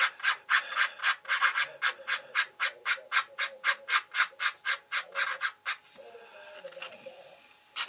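Sanding stick rubbed in short, quick strokes against the curved edge of a thin card model part, about four strokes a second, stopping just under six seconds in. The card edge is being sanded down to a marked line.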